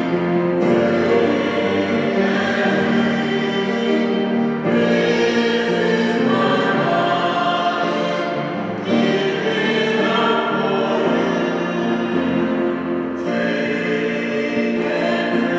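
Church music: singing with piano accompaniment, in sung phrases about four seconds long.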